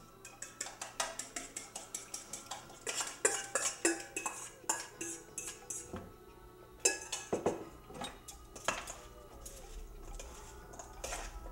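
A metal fork scraping and tapping against metal mixing bowls, with quick runs of light clinks, then a few louder clanks as tongs toss julienned celeriac and apple in the bowl.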